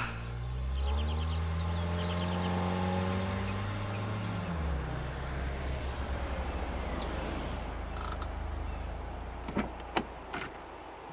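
Car engine revving up, holding a steady pitch, then winding down as the car slows and settles into a low idle rumble. A few sharp clicks near the end as a car door is opened.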